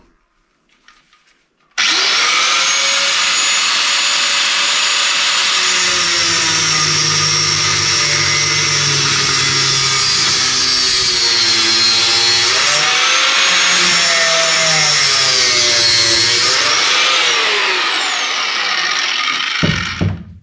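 Angle grinder cutting a metal strip clamped in a vise. The motor starts abruptly about two seconds in and runs steadily under load, its pitch dipping and wavering as the disc bites. Near the end it is switched off and spins down with a falling whine.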